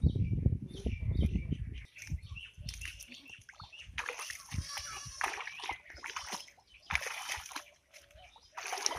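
Shallow muddy water splashing and sloshing in irregular bursts as a person wades in among water hyacinth, with a dense low rumble through the first two seconds.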